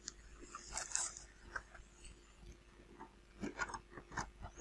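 3D-printed plastic wing parts being handled and pressed together: scattered light clicks and knocks, a brief scratchy rub about a second in, and a quicker run of clicks near the end.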